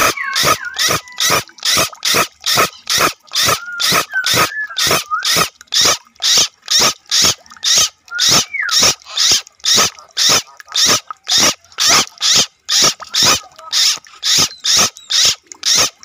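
An animal call repeated in a steady rhythm, about two calls a second, with a few whistled gliding calls over it near the start and about halfway through.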